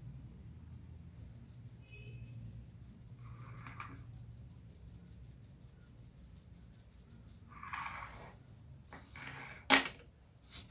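Freshly ground herbs being sifted through a small hand sieve: a faint, fast, even rattling as the sieve is shaken, then a couple of brushing scrapes and one sharp knock near the end.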